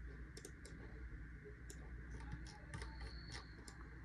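Faint scattered clicks, typical of a computer mouse being clicked, over a steady low room hum.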